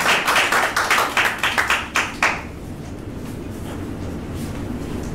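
A small audience clapping, dying away about two seconds in. A steady low room hum remains afterwards.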